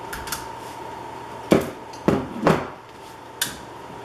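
Light clicks, then about four sharp knocks: a dimmer switch and its metal mounting strap being handled and pushed into an electrical wall box, its break-off tabs just snapped off to make room.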